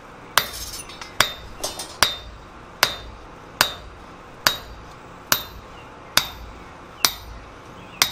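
A striker's sledgehammer hits a handled drift, driving it through a hole punched in a red-hot steel swage block on the anvil. There are about ten steady blows, a little under one a second, each with a short metallic ring.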